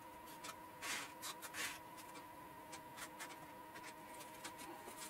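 A small stick scraping excess wet epoxy out of a slot in a model aircraft wing: two short scratchy scrapes about a second in, then light scratches and ticks.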